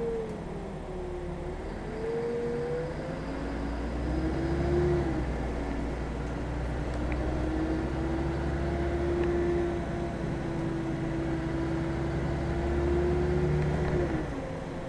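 City bus engine and drivetrain heard from inside the passenger cabin as the bus drives: the pitch dips, rises as it speeds up, holds steady, and drops about a second before the end, over a steady low rumble.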